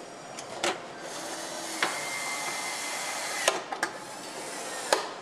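Assembly-line work noise on a motorcycle being built: a steady hiss with a thin whine over it for a couple of seconds, broken by several sharp clicks and knocks of parts and tools.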